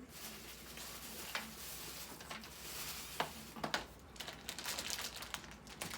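Close-miked rustling of shop items being handled, a steady hissy rustle with a few sharp taps or clicks, three of them in the middle.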